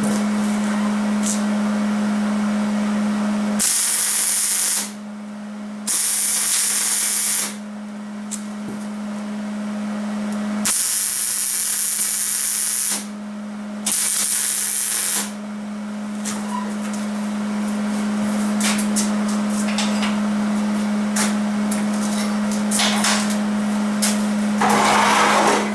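Welding arc hissing and crackling in four short bursts of one to two seconds each, over a steady low hum; then scattered light clicks and a louder knock near the end.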